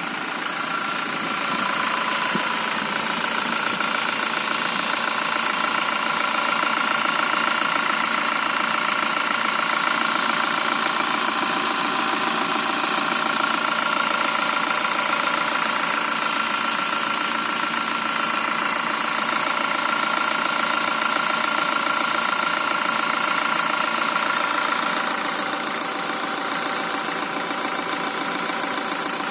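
Toyota Fortuner VRZ engine idling steadily with a repetitive "duk duk duk" knock, a noise the owner suspects is an engine problem. A steady high whine runs along with it and fades near the end.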